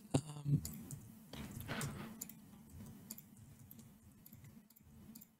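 Scattered light clicks of a computer mouse and keyboard keys while shortcuts are used, over a faint steady low hum.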